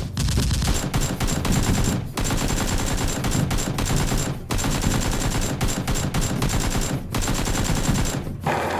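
Rapid automatic gunfire sound effects for the Nerf blasters, firing in long bursts of about two seconds broken by short pauses.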